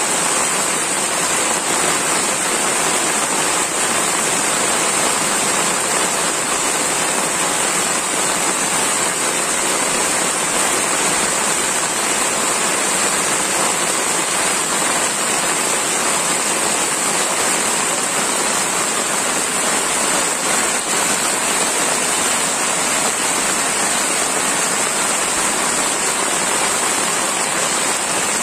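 Heavy rain falling steadily, a dense, even hiss of water with a steady high-pitched hiss on top.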